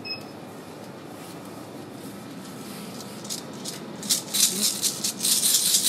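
A small orange plastic hand rattle shaken quickly, with a string of rapid rattling strokes that starts about three seconds in and gets louder and steady from about four seconds in.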